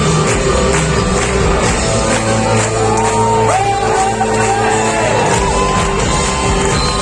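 Live rock band playing, with singing and audience shouts and whoops over the music. Sliding pitched notes come in from about halfway through.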